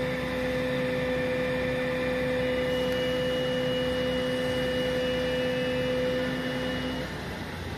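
Fire engine and its pump running steadily while a hose jet plays on the fire, heard as a steady hum under a wash of noise. A higher whine joins about two and a half seconds in, and the tones stop about seven seconds in.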